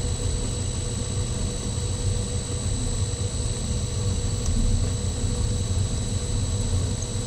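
Grizzly G0704 benchtop milling machine, converted to belt drive and run from a variable-frequency drive, with its spindle turning a drill bit fed by hand into 1-inch steel stock: a steady low hum with a thin high whine.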